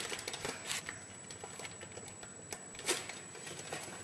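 Irregular light clicks and ticks, a slightly louder one about three seconds in.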